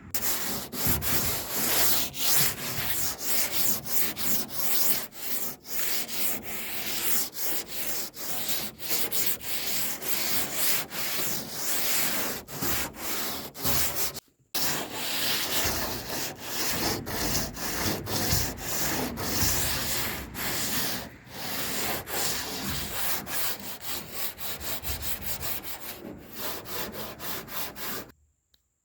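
Sanding on the sheet-metal body of a 1978 Ford pickup: a continuous scratchy abrasive rasp that rises and falls with each pass. It breaks off for a moment about halfway and stops abruptly near the end.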